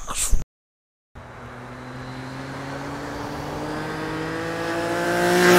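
Motorcycle engine approaching, its pitch and loudness rising steadily as it accelerates out of a corner. It is loudest near the end.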